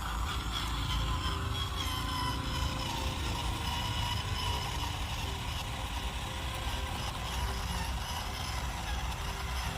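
Remote-control toy JCB running, a steady motor whir with an even engine-like hum under it.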